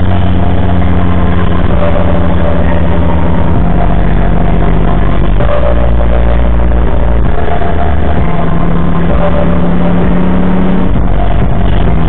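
Car engine and road noise heard from inside the cabin through a dashcam microphone, a loud steady hum that shifts in pitch a few times as the car drives on.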